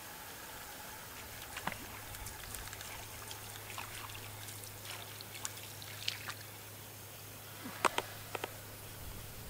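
Light, irregular clicks and ticks from a feeder rod and spinning reel being handled, with a few sharper clicks about eight seconds in, over a faint steady low hum.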